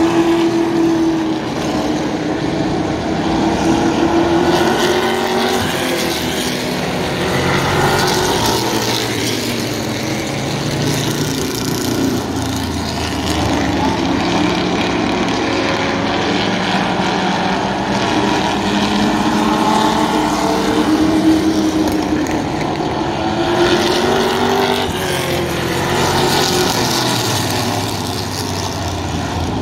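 Several vintage stock car engines, V8s and inline sixes, running hard around a short oval at once. Their pitches rise and fall as the cars go through the turns and pass by.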